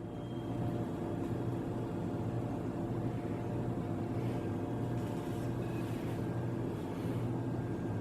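Steady low machine hum with a faint hiss, unchanging throughout.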